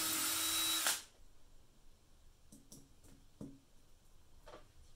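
Cordless drill running at a steady speed, stopping abruptly about a second in, followed by a few light clicks and taps.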